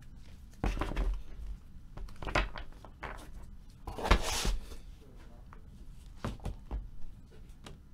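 Tabletop handling noises: a low thud just under a second in, scattered light clicks and knocks, and a longer rustle about four seconds in.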